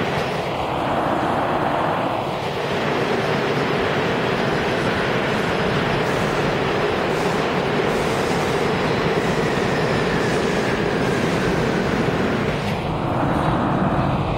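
New York City Subway A train running through an underground station: a steady, loud rumble of wheels and motors on the rails, with a faint falling whine partway through.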